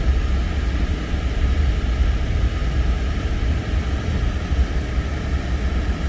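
Steady low rumble and hiss of a four-wheel-drive vehicle driving on snowy roads, heard from inside the cab.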